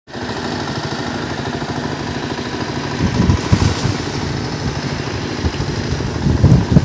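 A cast net lands on the water about three and a half seconds in with a brief splashing hiss, over a steady low rumble that swells in gusts around the splash and again near the end.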